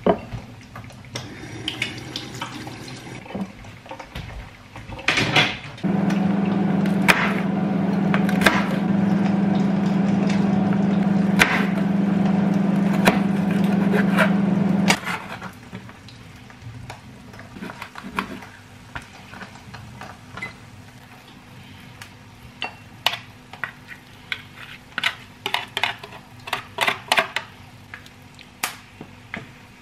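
Kitchen food-prep sounds: light handling noises, then a steady electric hum for about nine seconds that cuts off suddenly, then quick runs of knife knocks on a plastic cutting board.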